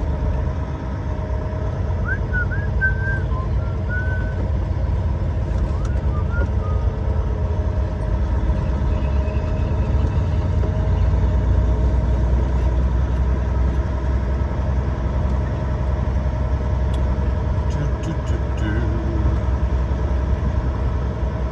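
Semi-truck's diesel engine running as the truck rolls slowly, heard from inside the cab as a steady low rumble.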